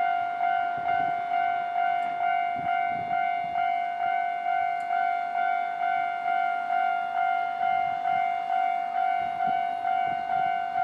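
Japanese railway level-crossing alarm ringing: a steady electronic bell tone struck over and over, a little under twice a second, each strike fading before the next. A faint low rumble lies underneath.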